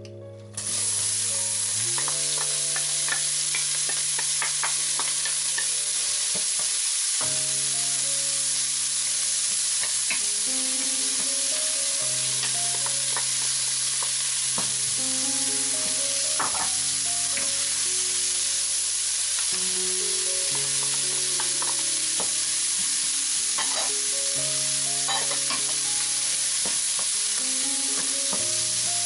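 Diced onion dropped into hot oil in a pot starts sizzling about half a second in. The sizzle keeps a steady frying hiss as celery root and carrot cubes are added and stirred with a wooden spoon, with scattered clicks of pieces and the spoon against the pot.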